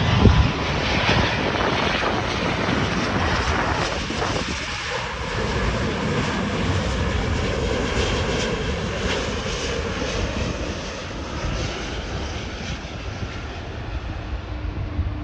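Boeing 777 jet engines running loud as the airliner comes in to land, a steady dense noise that slowly fades over the last few seconds. A brief low thump comes right at the start.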